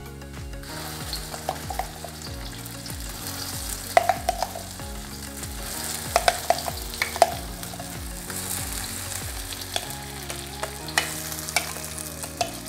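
Blended spice paste sizzling as it hits hot oil in a wok, the sizzle starting about a second in, with a few sharp knocks of the blender jar and utensils against the wok.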